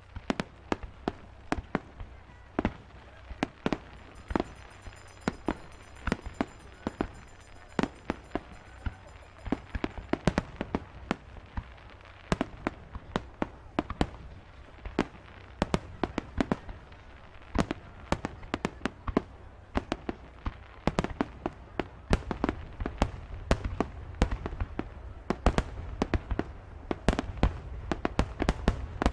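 Fireworks going off: a rapid, irregular string of sharp bangs and pops that grows denser and louder toward the end, over a low steady rumble.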